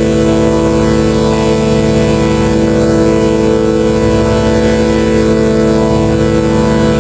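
A loud, steady droning tone with many overtones and a fast low buzz beneath it, holding one pitch without change.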